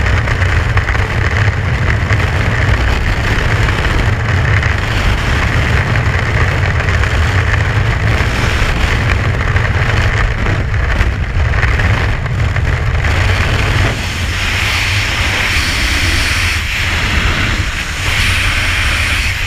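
Freefall wind rushing over a head-mounted camera's microphone: a loud, steady buffeting noise, heaviest in the low end, which eases slightly about 14 seconds in.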